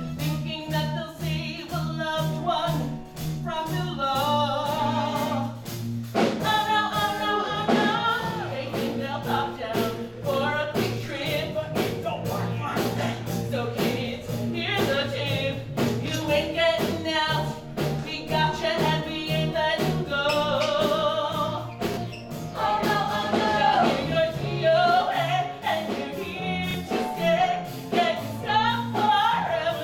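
Musical theatre song: singing over band accompaniment with a steady, pulsing bass line.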